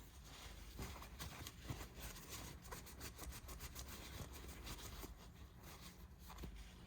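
Faint small clicks and rubbing from handling a freshly oiled pocket knife, its blades being worked in the joints.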